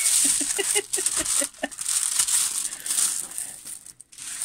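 Clear plastic packaging over a diamond painting kit crinkling under hands as it is smoothed and handled, a steady run of small crackles that drops out briefly near the end.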